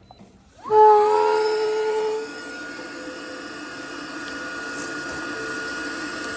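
A small electric motor starting up with a rising whine, then running steadily with a whine and a rush of air, loudest for its first second or so.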